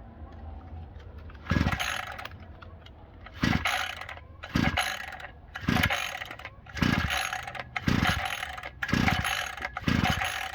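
Recoil starter of the Parkside PBK 4 B3's two-stroke petrol engine being pulled eight times, each pull a short whirring rasp, about one a second after the first two. The engine does not catch; the owner thinks fuel has probably not yet reached the carburettor.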